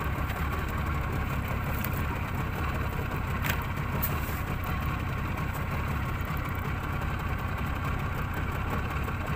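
A small boat's 30-horsepower engine running steadily at low speed, with a faint tick or two about three and a half seconds in.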